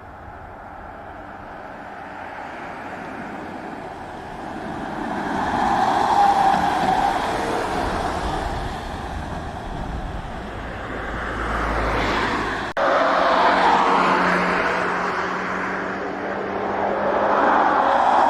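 Kia EV9 electric SUV driving past at speed, heard almost only as tyre and wind noise with no engine note, swelling as it approaches. The sound breaks off abruptly about thirteen seconds in and jumps to another loud pass.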